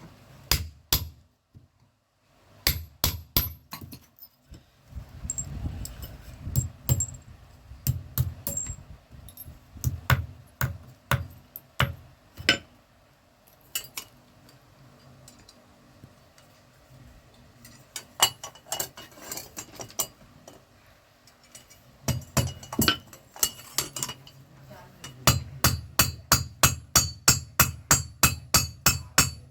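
Blacksmith's hammer striking an iron bar on an anvil, forging a handle for an uruli: scattered ringing blows, then a fast steady run of about four blows a second near the end.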